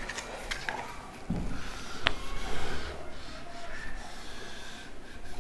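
Whiteboard duster rubbing across the board as written figures are wiped off, with a few small clicks and one sharp click about two seconds in.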